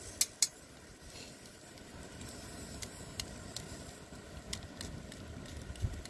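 Campfire embers under fish in wire grill baskets crackling, with scattered small pops and two loud sharp clicks near the start, over a steady low rush of the river.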